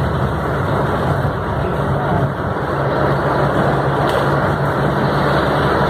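Heavy rain pelting a moving car's roof and windshield, heard from inside the cabin over the steady hum of the engine, with the windshield wipers sweeping.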